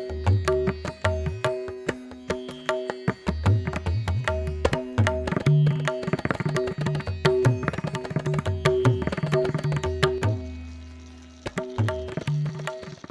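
Instrumental background music: rapid, rhythmic drum strokes over steady held tones, briefly softening near the end.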